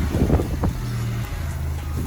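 Off-road vehicle's engine running under load while driving over rough ground, with a couple of sharp knocks in the first second.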